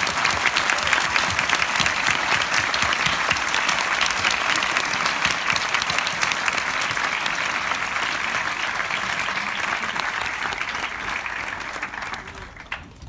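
Audience applauding, a dense steady clatter of many hands clapping that tails off near the end.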